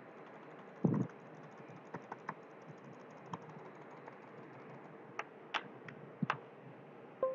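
A handful of short, sharp clicks at a computer desk, spaced irregularly over a faint steady hiss, with a duller thump about a second in.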